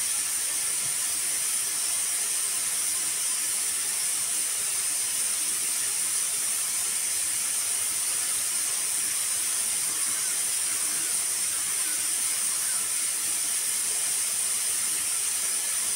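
Pressure cooker on a wood fire hissing steadily as steam escapes from its lid vent.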